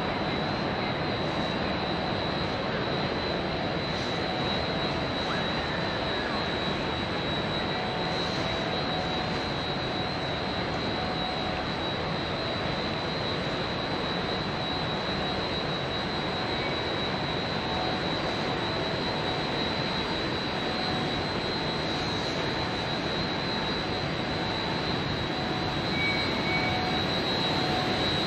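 Steady outdoor ambient noise: an even rumble with a thin, steady high whine over it and no single event standing out.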